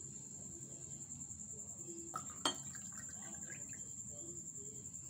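Cold water poured from a glass jug into stemmed glasses of mango squash, a faint trickle, with a sharp clink of glass about two and a half seconds in.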